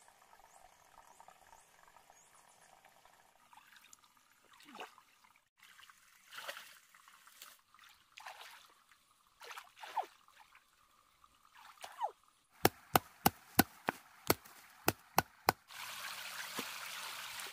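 Shallow stream water splashing and dripping as a person wades and reaches into it, then a quick run of about ten sharp knocks, about three a second, followed by a steady rushing noise near the end.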